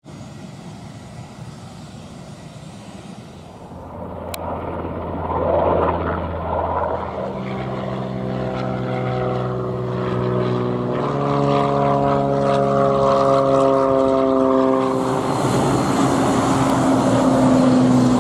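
Airliner engine sound across a series of short clips that change every few seconds, ending with a turboprop airliner passing overhead. Its propellers give a steady multi-tone hum.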